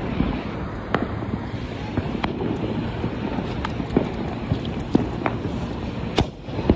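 Firecrackers going off around the area: several separate sharp bangs and pops over a steady rumble of road traffic.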